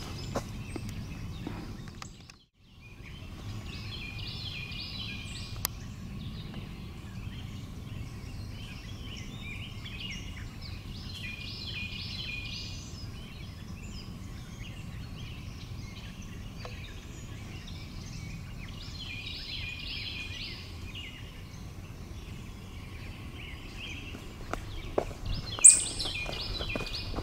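A songbird sings the same short, trilled phrase about every seven or eight seconds, four times, over a steady low outdoor background. The sound briefly drops out about two seconds in, and there is one sharp click near the end.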